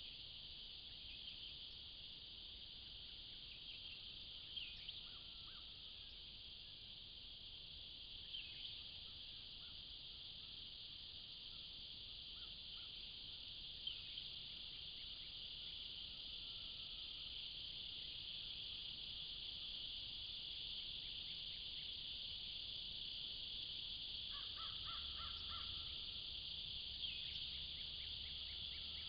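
Steady high-pitched chorus of insects in summer woods, with a few short bird calls over it and a burst of repeated calls about three-quarters of the way in.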